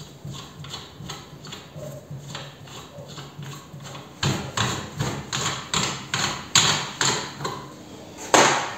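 Gloved hands spinning the loosened nut off a shock absorber strut clamped in a vise: rhythmic scraping strokes, two or three a second, faint at first and much louder from about halfway, with a stronger one near the end.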